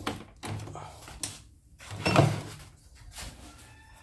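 Handling noises from a plastic embroidery machine being moved about on a wooden table: several separate knocks and scrapes, the loudest about two seconds in.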